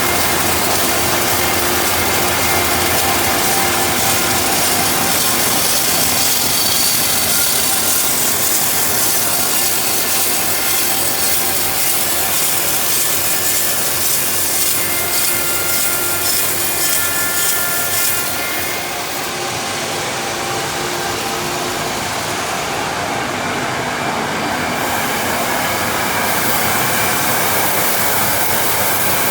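A sawmill saw cutting lengthwise through a large ash log: a steady, loud sawing noise. The hiss softens slightly for a few seconds about two-thirds of the way through.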